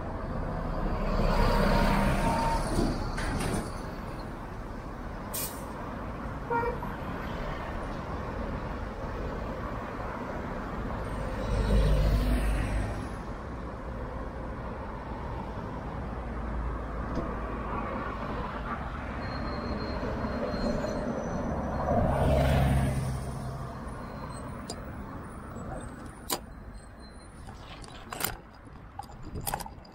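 Road traffic at a wide intersection: motor vehicles, cars and trucks among them, pass one after another, with three louder close passes about two, twelve and twenty-two seconds in. A few sharp clicks come near the end.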